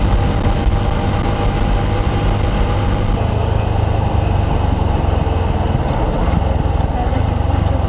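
Motorcycle cruising at speed: steady engine and road noise under heavy, continuous wind rush on the rider's microphone.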